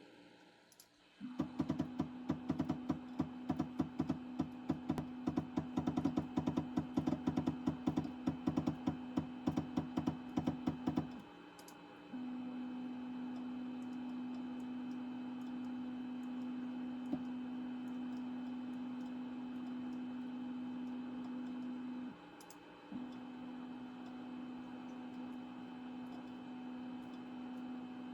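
A steady mechanical hum with rapid, even clicking over it for about ten seconds; the clicking then stops and the hum runs on, dropping out briefly twice.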